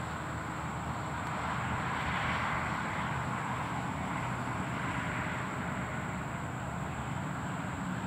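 Steady rushing of distant road traffic, swelling and fading a little as vehicles pass.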